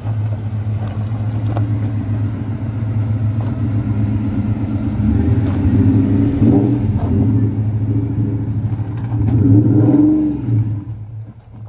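Ford Coyote 5.0 V8 (Gen 1 F-150 engine) in a Mustang drift car running at idle, with throttle blips about halfway through and again near the end, after which the sound fades away.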